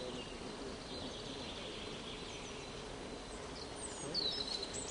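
Outdoor woodland ambience with a bird calling: a few short, high, falling chirps near the end over a steady background hiss.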